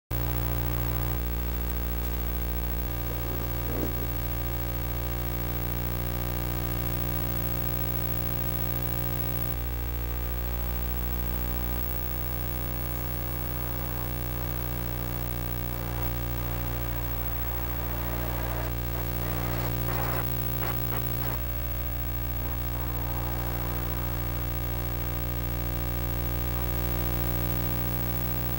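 Background music: a guitar track with bass, with held notes over a steady low bass, starting abruptly.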